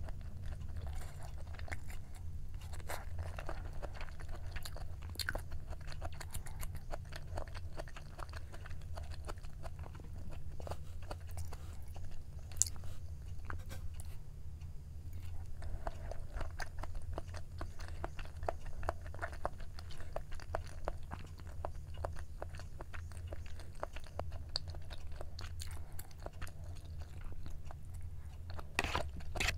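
Close-up chewing of Korean braised chicken (jjimdak) and braised quail eggs, with many small sharp mouth clicks, over a steady low hum.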